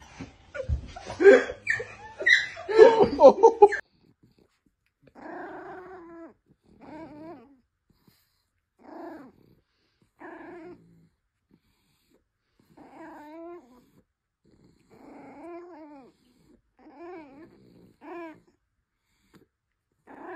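Loud laughter and commotion for the first few seconds, then a dog giving a string of about nine short, wavering whining calls, each under a second, with pauses between.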